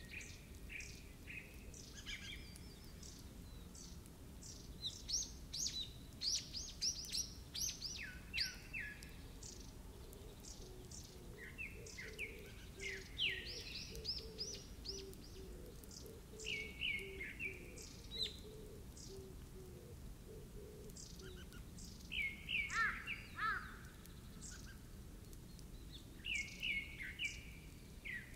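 Songbirds singing in short phrases of rapid high chirps and trills, a new phrase every few seconds, over a faint steady background of outdoor ambience.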